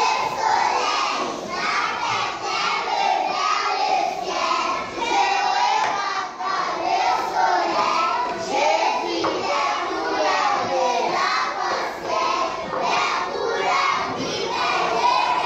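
A roomful of young children's voices talking and calling out over one another, with some sing-song chanting mixed in.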